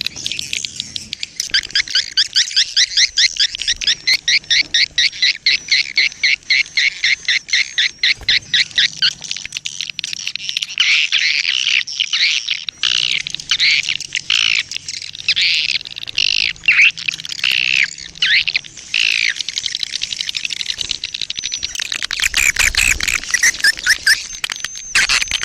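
A songbird singing: a fast run of short, high, sweeping notes, about five a second, that gives way about ten seconds in to slower, more varied phrases.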